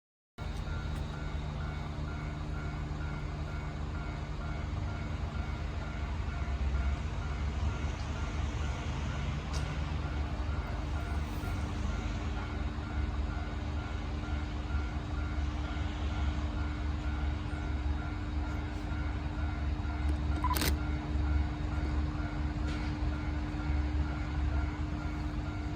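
Low, steady drone of a KiHa 40 series diesel railcar's engine, with a level-crossing alarm beeping in an even repeating beat above it. One sharp click about twenty seconds in.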